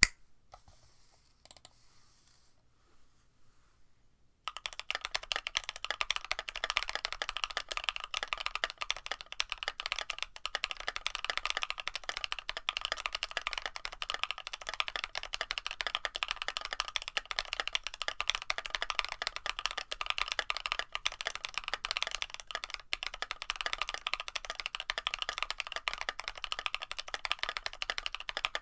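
Fast, continuous typing on a mechanical keyboard, an Aozora with NovelKeys Cream+ linear switches on a carbon fiber plate, their stems fitted with metal inserts to change the bottom-out sound. The keystrokes start as a dense run of clacks about four seconds in, after near quiet.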